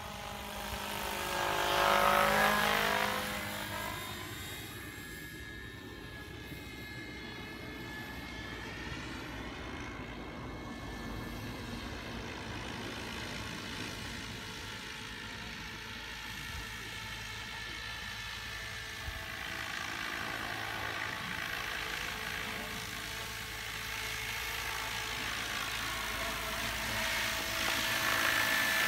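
Vario scale model Schweizer 300C radio-controlled helicopter flying, its drive and rotors making a whine of several tones. It is loudest about two seconds in, with the pitch shifting as it passes, and grows louder again near the end as it comes closer.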